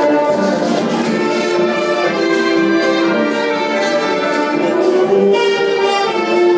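Orchestral music, with strings and brass holding long notes.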